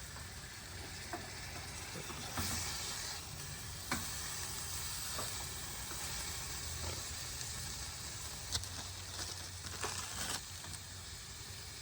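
Burger patties sizzling on a hot grill, a steady frying hiss with a few sharp clicks or scrapes along the way.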